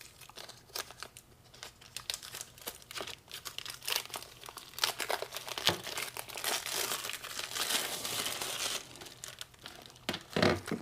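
Packaging crinkling and rustling as a pair of motorcycle trunk lights are unwrapped by hand, in scattered crackles that grow denser about halfway through, then thin out.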